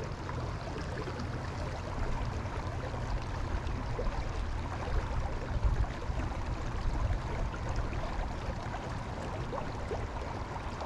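Steady rush of a small creek running over shallow riffles, with a low rumble underneath.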